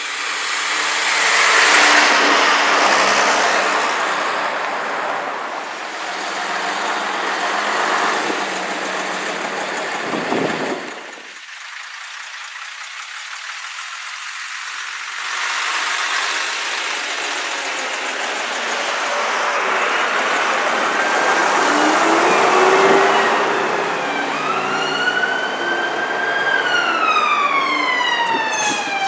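Diesel engine of an AEC Regent RT double-decker bus pulling away and passing, loudest about two seconds in, followed by passing bus and traffic noise. From about two-thirds of the way through, an emergency-vehicle siren wails, its pitch rising and falling.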